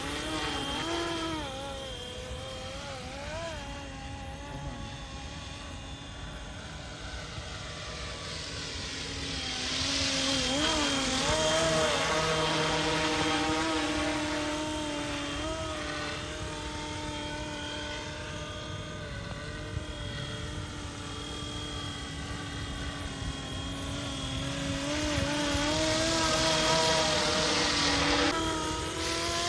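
Roban 450-size BO-105 scale RC helicopter running, its electric motor and rotors making a steady whine whose pitch wavers up and down with throttle changes. It grows louder twice, about a third of the way in and again near the end.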